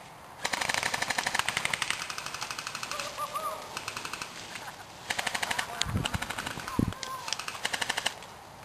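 Airsoft electric rifles (AEGs) firing long full-auto bursts, a rapid even rattle of shots, in two stretches with a short gap about four seconds in. A couple of dull thumps come during the second burst.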